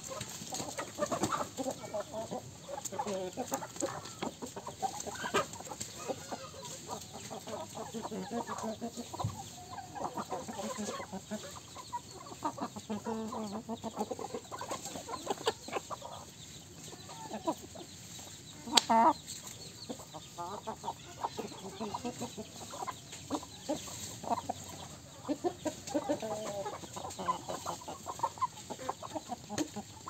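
A flock of chickens clucking continuously as they feed, many short overlapping calls. One loud, sharp sound stands out about two-thirds of the way through.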